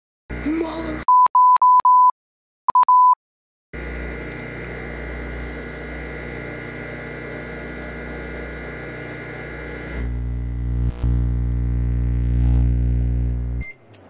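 Microwave oven keypad beeping: four quick beeps, then a short pair. After a pause the oven runs with a steady electrical hum that turns louder and deeper about ten seconds in, with a click, then cuts off abruptly near the end.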